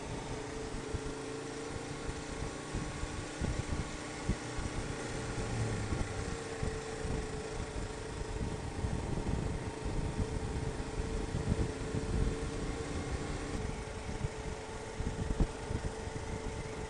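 Motorcycle engine running at a steady road speed, heard from the rider's own bike over a rough, uneven rumble of wind on the microphone. The engine note shifts about three-quarters of the way through.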